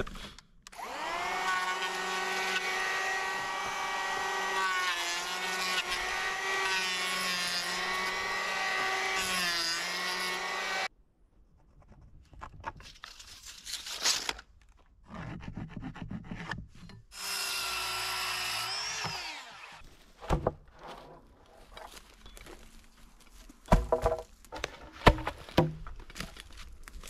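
Electric hand planer shaving the edges of a wooden board: a steady whine for about ten seconds that stops abruptly, then a second, shorter pass later that spins down as the tool is released. Scattered knocks of wood being handled follow near the end.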